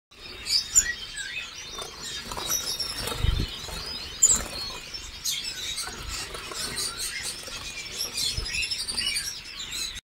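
A flock of Gouldian finches calling: many short, high chirps overlapping one another without pause, with a couple of dull thumps about three and four seconds in.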